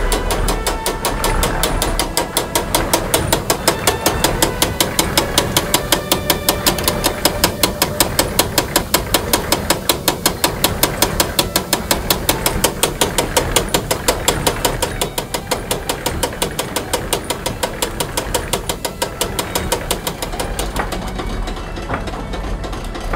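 Windmill's grinding machinery running, with a fast, even clatter of about four to five knocks a second over a low rumble while grain feeds from the hopper to the millstones.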